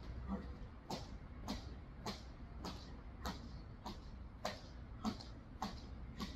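Heavy battle ropes slapping the concrete floor in a steady rhythm, a little under two slaps a second.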